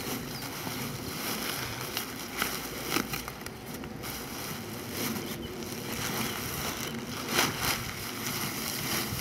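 Nylon paraglider fabric and its packing bag rustling as they are handled and opened out, with several sharper crinkles along the way.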